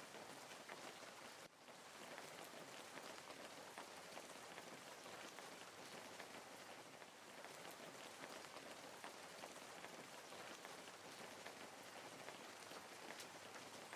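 Wood fire crackling faintly: a dense patter of small crackles and pops over a steady hiss, dipping for an instant about one and a half seconds in.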